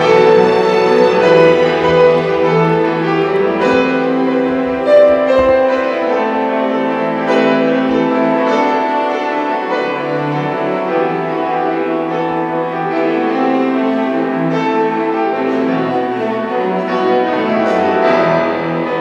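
Classical music: piano with bowed strings, playing held, sustained notes.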